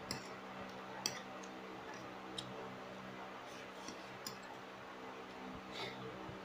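Metal spoon clicking against a ceramic plate a few times while fried rice is scooped and eaten, over a steady low hum.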